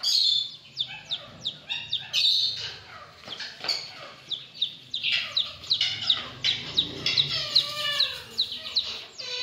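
Domestic chicken chick peeping: a fast, continuous series of short, high-pitched peeps, each falling in pitch, several a second.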